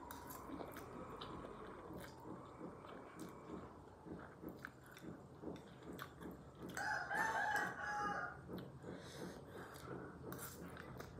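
Close-up chewing and slurping of spicy instant noodles, in a steady rhythm of soft wet mouth sounds. Near the middle comes a single drawn-out, pitched call about a second long, louder than the chewing.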